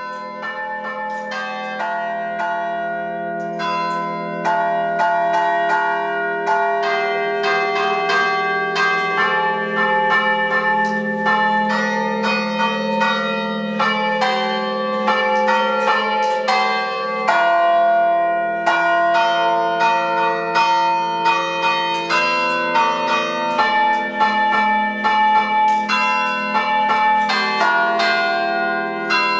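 Church carillon played by hand, each bell sounded by pulling a handle wired up to it. Quick strokes on several bells of different pitches ring on over one another, growing louder over the first few seconds.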